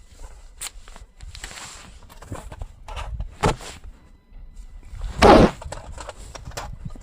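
Rustling and crinkling as things are handled, in a string of short noisy bursts, the loudest about five seconds in.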